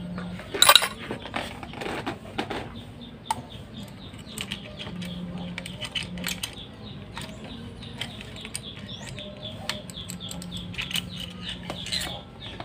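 Small metallic clicks, clinks and rattles of hands working the cylinder head and cam chain sprocket loose on a Honda Vario 110 scooter engine during teardown, a few louder knocks in the first couple of seconds.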